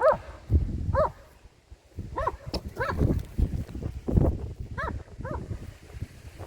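A dog barking repeatedly: short, high, rising-and-falling barks about once a second, half a dozen in all.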